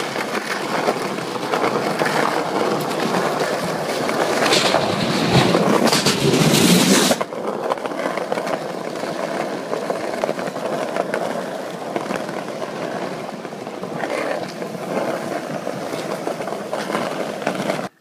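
Skateboard wheels rolling over smooth pavement, a steady rolling noise that is louder for the first seven seconds or so and then drops sharply to a lower level.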